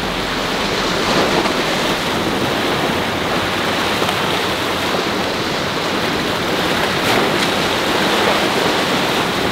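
Ocean surf breaking and washing over the granite boulders of a jetty, a steady loud rush of water.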